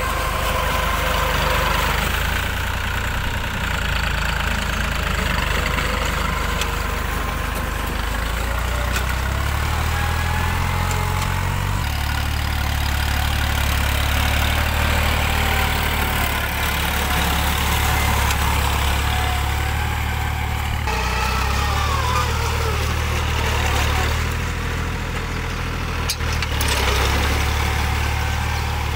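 Mahindra B275 DI tractor's three-cylinder diesel engine running steadily under load while puddling deep mud with a cultivator, its note shifting a couple of times, about twelve and twenty-one seconds in.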